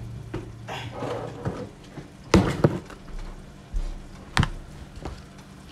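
Kitchen clatter while cooking: a handful of sharp knocks and clacks of cookware and utensils, the loudest a quick pair about two and a half seconds in, over a low steady hum.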